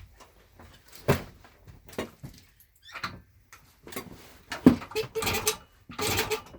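Irregular clicks and knocks of hands working on a small 1977 Yamaha GT80 motorcycle. In the second half come several short rasping bursts, each about half a second, as the engine is kicked over to test the new ignition coil for spark.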